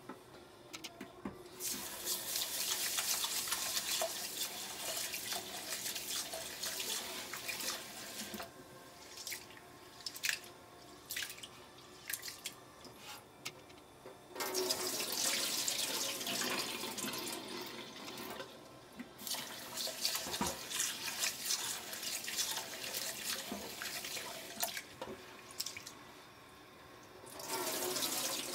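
Water running and splashing in a stainless steel sink as urad dal is washed in a glass bowl: the lentils are swished by hand and the cloudy rinse water is poured off into the sink. The water comes in several long stretches with quieter gaps and a few sharp knocks between them.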